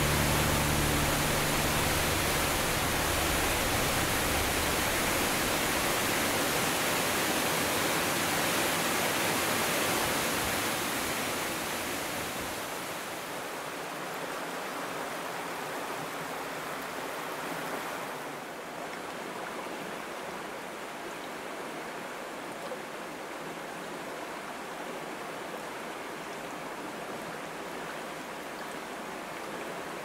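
Waterfall rushing with a steady, even noise of falling water, which drops to the quieter rush of a flowing stream from about twelve seconds in. The last notes of a music track fade out in the first few seconds.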